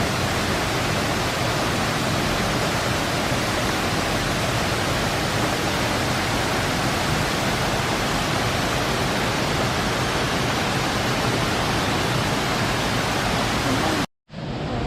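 Waterfall: a steady, dense rush of falling water, broken by a brief dropout to silence near the end.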